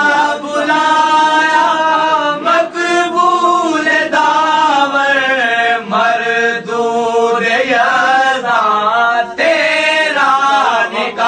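A man's voice chanting verse in a slow melodic style, long held notes gliding up and down, with brief pauses between phrases.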